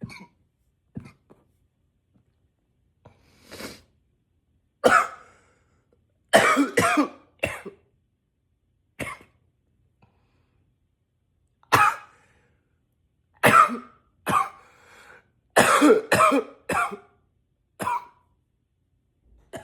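A man coughing again and again: single coughs and short runs of several coughs in quick succession, with pauses of a second or more between them.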